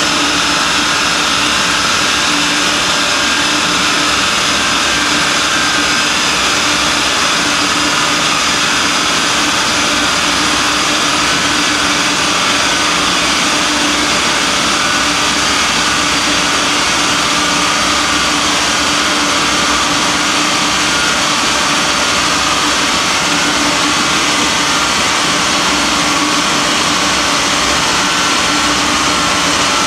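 Steady, unchanging drone of a car on a chassis dynamometer with a large cooling fan blowing at it: an Audi A4 B5's 1.9 TDI diesel held at one constant speed on the rollers, with no revving, mixed with the rush of the fan.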